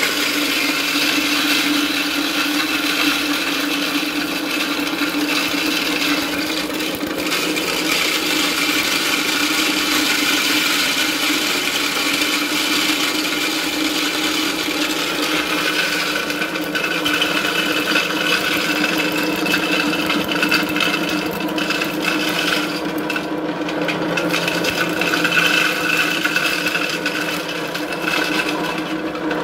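Portable electric dry mill grinder running steadily while it grinds cracked corn on a first pass. The grinding noise is continuous throughout.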